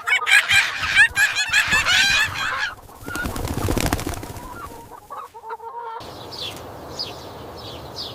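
Farm birds calling in a rapid, overlapping flurry of short clucks and chirps, followed by a few seconds of rustling or flapping noise and then a few faint chirps.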